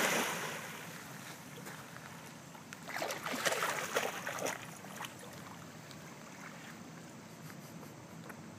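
Water splashing as a dog plunges into a pond, the splash dying away over the first second. A second short spell of splashing and sloshing comes about three seconds in, then only faint lapping as the dog swims off.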